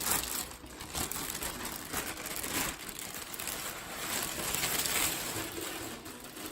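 Packaging being handled: a continuous crinkling and rustling of wrapping, with a few louder handling sounds, as a new handbag is unwrapped.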